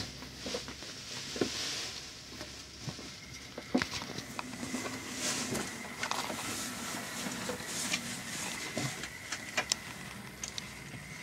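Model railway train running along the track: a faint steady whine with scattered small clicks and rattles.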